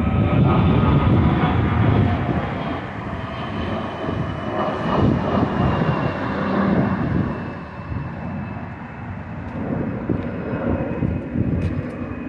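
Bombardier CRJ-200 regional jet with its two GE CF34 turbofans, heard climbing away after takeoff: a broad rumble that fades, with a faint high whine slowly falling in pitch.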